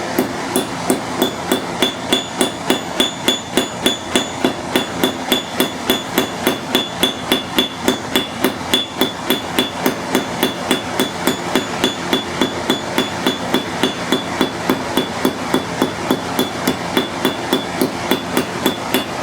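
Rapid, even hammer blows, about three a second, each with a bright ring: the sharpened peen of an old cross-peen hammer texturing a forged steel leaf held over the edge of the anvil.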